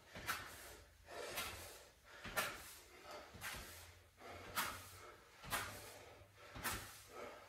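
A person breathing hard through a cardio exercise, with a sharp, noisy exhale about once a second in a steady rhythm.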